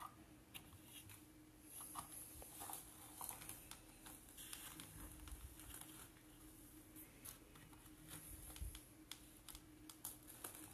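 Faint, irregular clicks and scrapes of a plastic toy excavator being worked by hand, its bucket digging into sand and loading it into a plastic toy dump truck.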